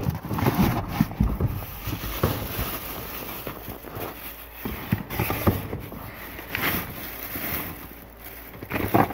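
Hands rummaging through a cardboard box of papers and photos: a plastic shopping bag crinkling, paper rustling and small knocks as items shift in the box.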